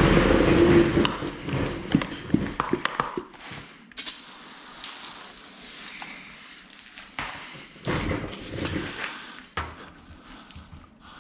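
Pump-up sprayer releasing a steady hiss of spray for about two seconds, starting about four seconds in and cutting off suddenly, with handling knocks and rubbing before and after.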